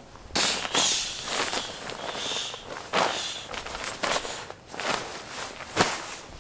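Nylon sleeping bag and camping pillow rustling as they are handled and the pillow is picked up, with a few sharp knocks along the way.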